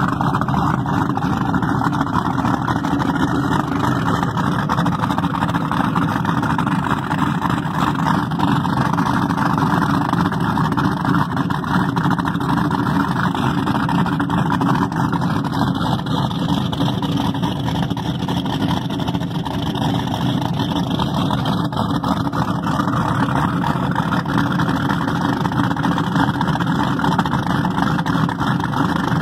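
Twin 555-cubic-inch big-block V8s of a 1987 Fountain 10 Meter go-fast boat running steadily at the dock through CMI through-transom exhausts, with the exhaust cooling water spraying out of the tips.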